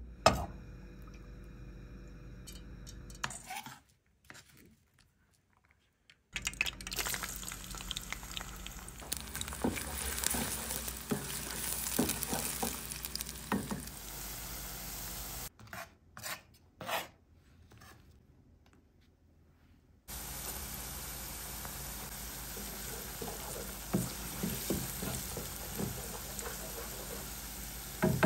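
Food sizzling as it fries in oil in a pan, with a spoon stirring and knocking against the pan. The sizzle comes in separate stretches, twice broken by short near-silent gaps.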